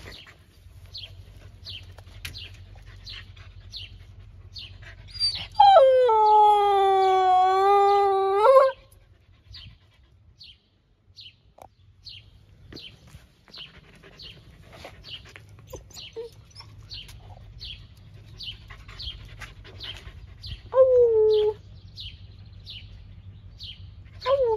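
Siberian husky puppy howling: one long howl of about three seconds, rising in pitch at its start and again at its end. About fifteen seconds later comes a short, slightly falling howl.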